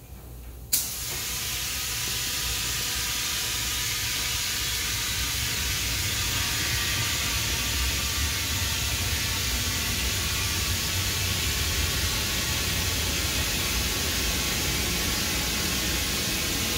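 Compressed air hissing steadily through a hose into an exercise ball as it inflates. The hiss starts abruptly under a second in.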